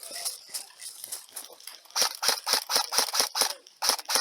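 Airsoft gun firing a rapid string of sharp snapping shots, about five a second, starting about halfway in, with fainter scattered shots before.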